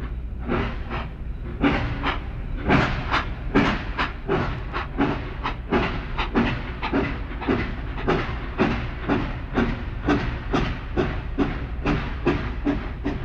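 Steam locomotive chuffing, a sound effect laid over the footage, its exhaust beats coming steadily quicker as the engine picks up speed.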